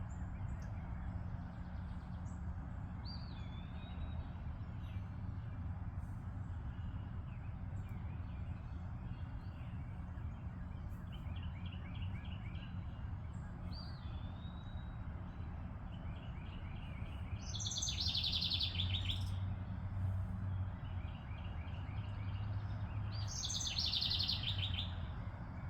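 Wild songbirds calling and singing: short swooping call notes, quick pulsing trills, and two louder song phrases that fall in pitch, one about two thirds of the way through and one near the end. A steady low hum runs underneath.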